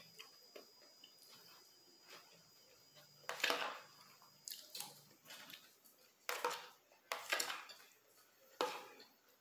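Eating sounds: a fork scraping and tapping on a plate, and close-miked chewing of rice, pasta and chicken. It is quiet with small clicks at first, then from about three seconds in comes a run of about six short, loud, noisy bursts.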